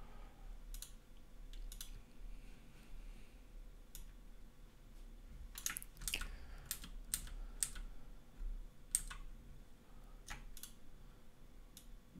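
Computer keyboard keystrokes and mouse clicks: scattered single taps, with a quick flurry of keystrokes about halfway through, over a low steady hum.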